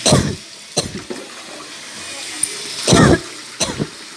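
Water poured from a plastic dipper splashing over a wet dog and onto a tiled floor: four sudden splashes, the loudest about three seconds in, with dripping between them.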